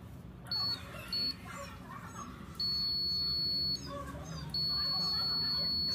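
High steady electronic tone from an electrosurgical (electrocautery) unit, sounding whenever the pen is switched on at the dog's ear. It beeps twice briefly, then sounds for about a second, then comes on again about four and a half seconds in and stays on.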